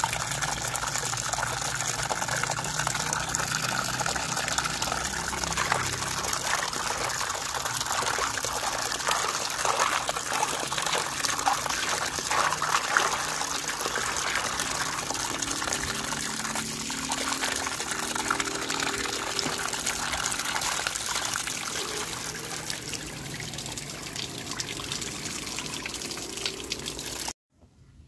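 Water pouring from a pipe into a basin of rocks, splashing steadily, with a hand swishing through the water to rinse the rocks. The water sound cuts off suddenly near the end.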